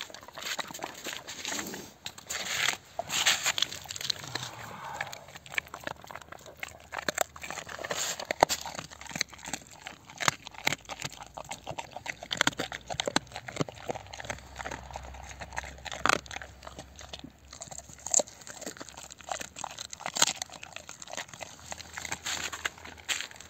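A Tornjak, a large livestock guardian dog, chewing raw meat and bones, with irregular wet crunches and sharp cracks of bone as it bites.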